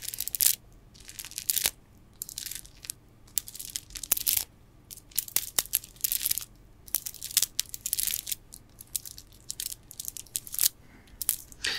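Gemstone bead bracelets handled close to the microphone: the stone beads click and grind against each other in irregular crisp bursts, with short pauses between.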